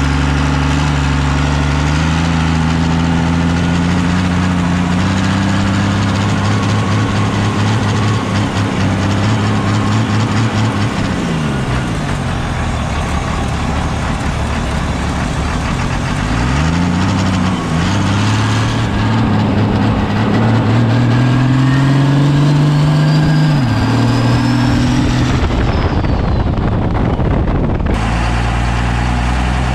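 12-valve diesel engine with a P-pump pulling the rat rod under way. The engine note climbs steadily, falls away around eleven seconds in, then climbs again and drops off, with a faint high whine rising and falling near the end. After a cut near the end the engine idles at a steady pitch.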